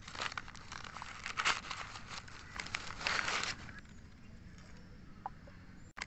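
Crumpled newspaper crinkling and rustling in the hands as a miniature clay pot is unwrapped from it. The rustling stops about three and a half seconds in.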